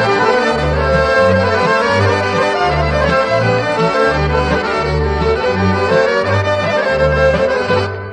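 Instrumental break of a Serbian folk song: an accordion plays the melody over a bass line moving in even beats, with no singing.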